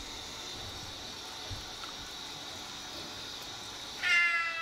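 Water running steadily during a cat's bath in a grooming tub; about four seconds in, the wet Maine Coon cat lets out a loud, long meow that falls in pitch.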